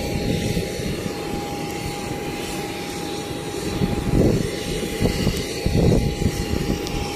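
Jet aircraft noise on an airport apron: a steady high whine over an uneven rumbling roar, swelling about four and six seconds in.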